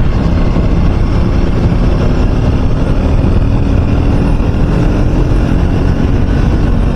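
Triumph Speed 400's single-cylinder engine running steadily while the motorcycle is ridden at speed in a high gear, under a heavy low rumble of wind on the microphone.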